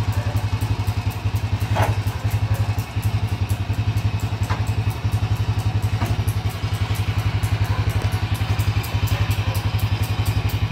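SYM Bonus X's single-cylinder four-stroke engine idling steadily with an even, fast pulse. A few light knocks come from work on the bike, at about two, four and a half, and six seconds in.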